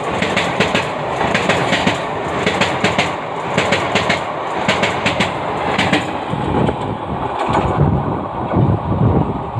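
Express passenger train running past at speed, its wheels clacking rapidly over rail joints. The clacking stops about six seconds in, leaving a lower rumble.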